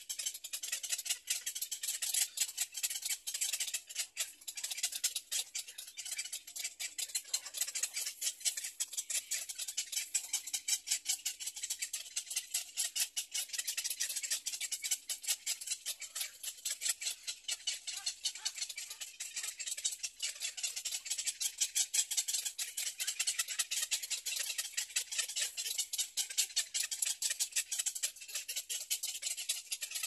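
Insect chorus, cicada-like: a continuous high-pitched rasping buzz made of very rapid pulses.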